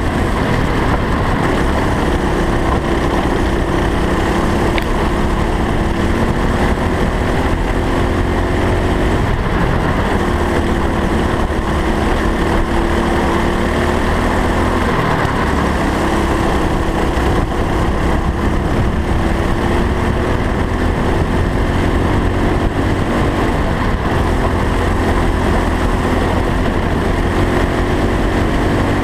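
Racing kart engine running hard on track, recorded from on board. Its pitch climbs steadily along each straight and drops back for the corners several times, over a heavy low rumble.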